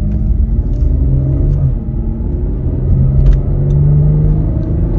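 Car driving, heard from inside the cabin: a steady low rumble of engine and road, with the engine hum rising slightly as it picks up speed.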